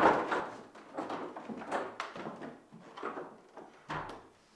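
Footsteps and a door being opened and shut as someone leaves the room: a series of soft knocks and thumps, the loudest right at the start.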